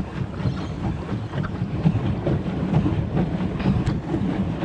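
Steady low wind rumble on the action camera's microphone while a pedal boat moves along the water, with a few faint ticks and splashes over it.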